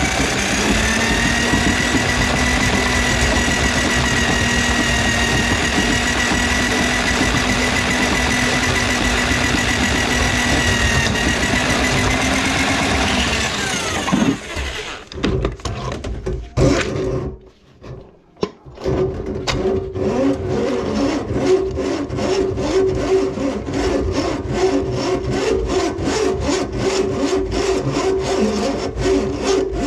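Electric drum drain auger running steadily, its motor humming as it spins the cable through a grease-clogged kitchen drain line, then switched off about halfway through with a slight drop in pitch as it winds down. After that come irregular knocks and rattles of the cable and drum being handled.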